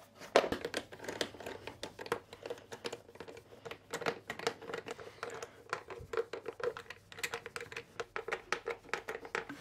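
Hand screwdriver driving T15 screws into a plastic motor casing: a run of small, irregular clicks and scrapes of the bit and screws against the plastic.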